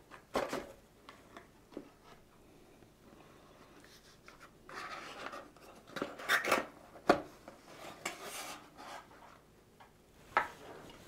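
A small cardboard product box being handled and unboxed: paperboard rubbing and sliding as the printed sleeve is slipped off and the lid is opened, with a few light taps and clicks of the box against the hands and table.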